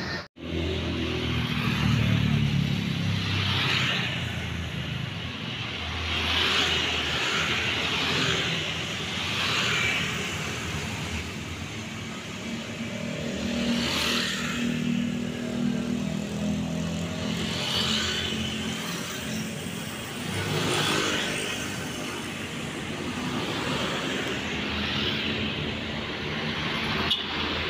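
Road traffic on a town street: cars and motorcycles passing one after another, each pass-by rising and fading over a steady rumble of engines.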